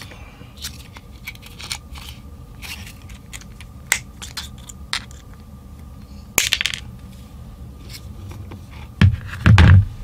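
Needle-nose pliers twisting the ends of a steel paperclip wire together through a PVC battery holder, with small scattered metallic clicks and scrapes, a louder crackle about six and a half seconds in, and a couple of heavier thumps near the end.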